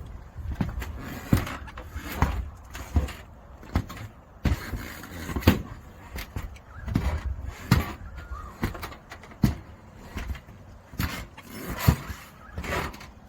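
Irregular footsteps and knocks on Kliplok steel roof sheeting, with wind buffeting the microphone.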